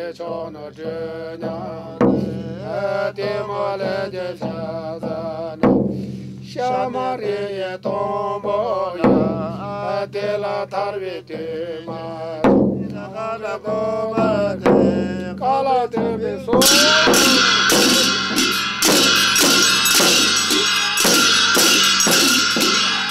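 Bon ritual chant by a male voice, with a large frame drum struck in a steady beat. About two-thirds of the way in, loud ringing percussion, like cymbals, joins with faster, denser beating.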